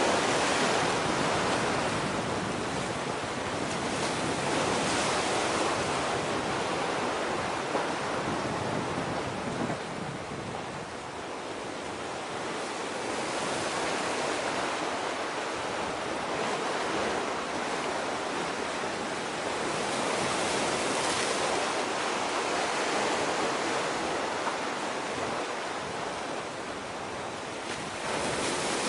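Rushing noise of surf and wind by the sea, swelling and easing every few seconds with no clear engine tone.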